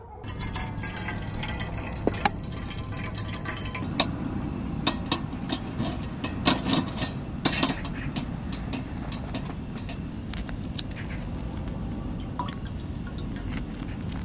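Portable canister gas stove burning steadily under a small metal pot, with irregular ticks and pops from the water heating in the pot.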